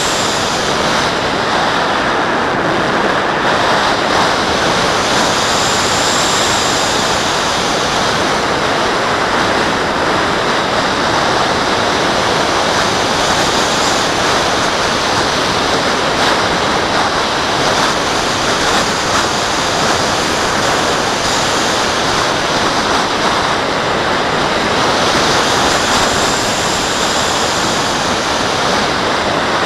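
Steady rushing wind noise of air streaming past a model glider's onboard action camera in flight, with a faint high whistle that comes and goes a few times.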